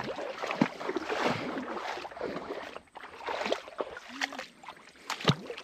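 Footsteps and rustling along a shallow stream edge, with light splashing of water, broken by a sharp knock near the end.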